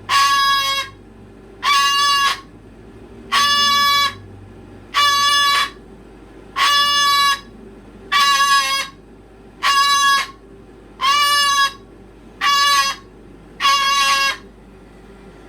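A pet animal calling loudly and repeatedly: ten flat-pitched, strident calls, each under a second long, about a second and a half apart, in an insistent, steady rhythm.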